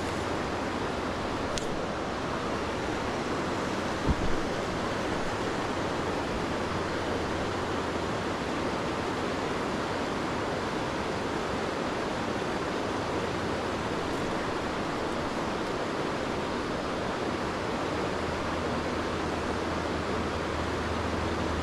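Steady rush of a high-running creek pouring over a rock ledge into a pool. A single brief knock about four seconds in.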